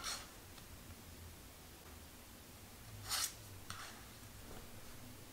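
Tarot cards sliding against each other as cards are drawn off the front of the deck and moved to the back: soft swishes, one right at the start and another about three seconds in, followed by a fainter one.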